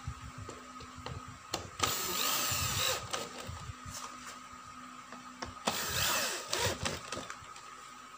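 Electric drill with a screwdriver bit driving screws that fix an office chair's backrest to the seat. The motor runs twice, each time for about a second, once near the start and once past the middle.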